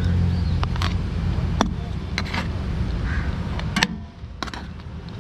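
Metal ladle scooping biryani out of a large aluminium pot, knocking and scraping against the pot in a series of sharp clinks, over a steady low rumble.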